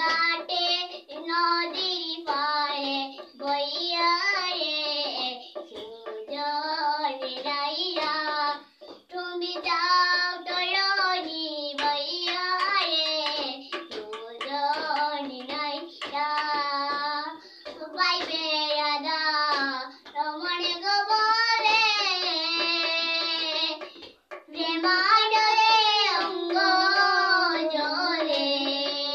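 A young girl singing solo without accompaniment, in long phrases with sustained, wavering notes and brief pauses for breath between them.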